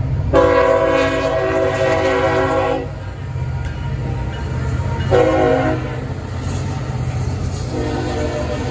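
Diesel locomotive's multi-chime air horn sounding a long blast, a short one about two seconds later, and another long one starting near the end: the tail of the long-long-short-long grade-crossing signal. A steady low diesel engine rumble runs underneath.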